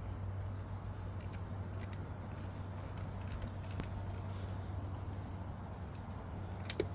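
A few scattered light metallic clicks and clinks from hand tools and bolts being worked, including a quick double click near the end, over a steady low hum.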